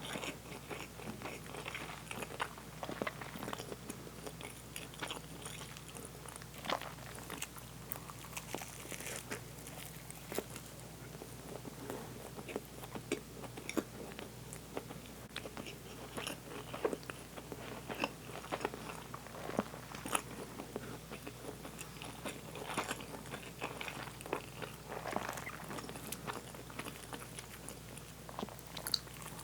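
A person chewing and eating food close to the microphone, with many short, irregular mouth clicks.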